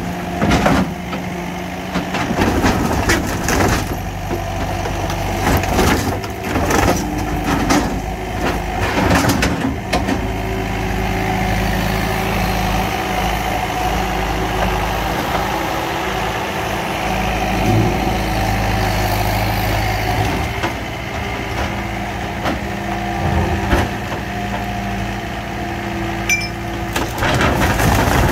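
Skid steer's diesel engine running steadily, with repeated crunches and bangs as its grapple tears into an old camper's metal siding and frame. The crashing is thickest in the first ten seconds and starts again near the end.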